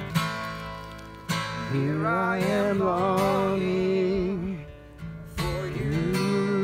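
Acoustic guitar strummed in slow chords, with a man singing long held notes with vibrato from about two seconds in, and again near the end.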